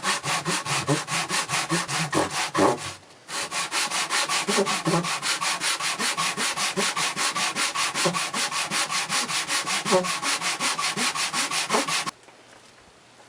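Fast back-and-forth hand sanding of the glued-up edges of a leather card wallet, about six even strokes a second. There is a short break about three seconds in, and the sanding stops near the end.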